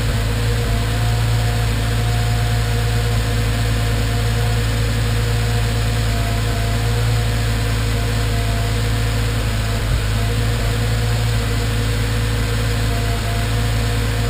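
Nissan GT-R's VR38DETT twin-turbo V6 idling steadily, with a brief stumble about ten seconds in: a random misfire.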